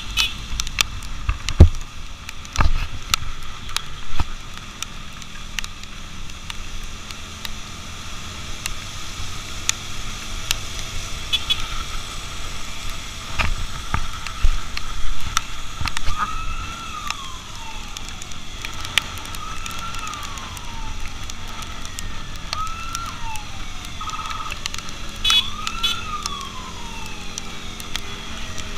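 Wind and road noise from a moving motorcycle, with scattered knocks. From about halfway through, an electronic siren sounds in repeated falling sweeps, roughly one every three seconds, and settles into a steady tone near the end.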